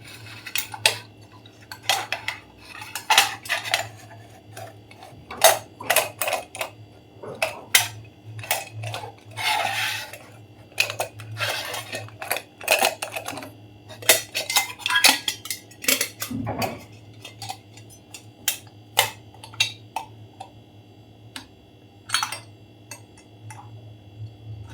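Stainless steel pot lid and handle parts clinking and tapping against each other as a small bolt is fitted and turned into the lid by hand: irregular sharp metal clicks, some in quick clusters.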